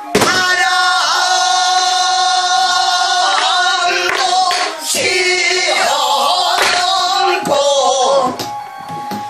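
A woman singing pansori in long, wavering held notes, with a few sharp strokes on a sori-buk barrel drum struck with a wooden stick.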